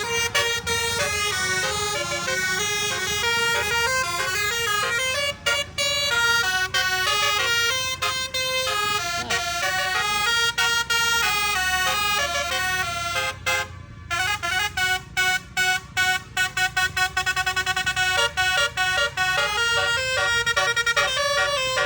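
Bus telolet horn, a set of multi-tone air horns, playing a string of melodies in quick stepped notes. About two-thirds through, after a brief pause, the notes turn into rapid stuttering bursts.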